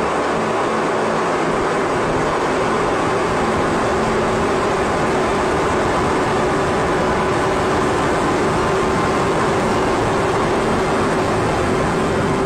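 Steady, even roar of a Blue Origin New Shepard rocket in powered ascent, engine noise and rushing air picked up by a camera mounted on the booster.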